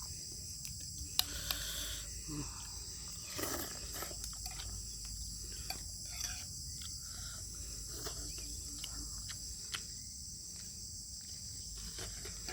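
Close-up eating sounds from a bowl of beef bone soup: scattered wet clicks, smacks and short slurps. Underneath is a steady high chirring of crickets.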